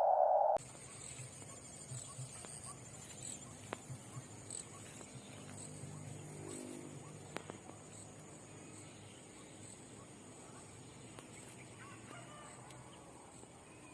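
A loud droning tone cuts off about half a second in. Faint background ambience follows, with a steady high-pitched whine, a few light clicks, and a faint distant animal call about six to seven seconds in.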